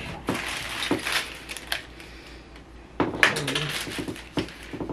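Household cleaning supplies being sorted by hand: plastic bottles and containers knocking and clattering, with rustling, in two spells of handling, one early and one about three seconds in.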